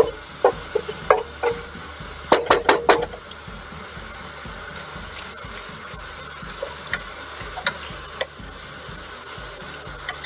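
Wooden spoon stirring minced meat and carrots in a stainless steel pot, knocking and scraping against the pot several times in the first three seconds, then quieter stirring with a few light ticks. Under it the mince sizzles steadily as it fries.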